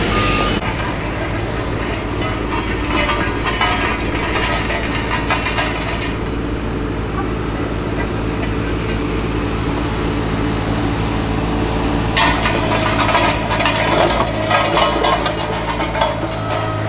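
Diesel engine of heavy road-works machinery running steadily, with a reversing beeper cutting off just after the start. Clanks and knocks come thick in the last few seconds.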